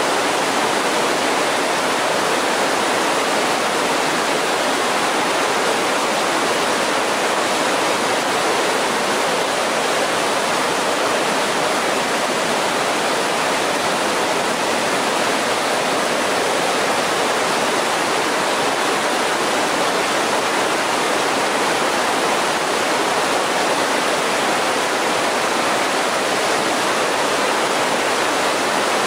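Rocky mountain creek rushing over boulders in whitewater rapids, a steady, unbroken wash of water noise.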